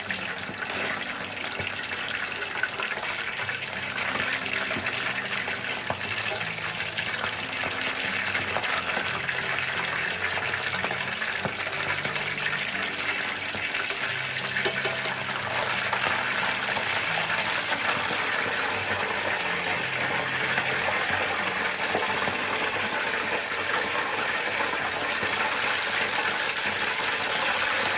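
Starch-coated pieces of deer meat deep-frying in hot oil for karaage, a dense steady sizzle that comes up sharply at the start and holds throughout.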